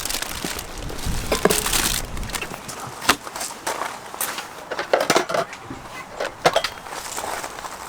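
Scattered knocks and light clinks of objects being handled and set down, with a few sharper ringing clinks around five seconds in and again about six and a half seconds in.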